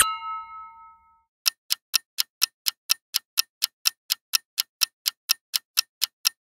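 Countdown-timer clock-ticking sound effect: sharp, even ticks about four times a second, starting about a second and a half in. In the first second, the ringing tail of a chime-like sound effect fades out.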